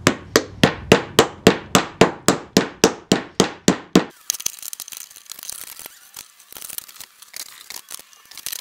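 A mallet rapidly knocking a glued dovetail joint in an oak drawer home, about three and a half even taps a second, stopping suddenly about four seconds in. After that, scattered clicks and rattles of quick-grip bar clamps being set and tightened.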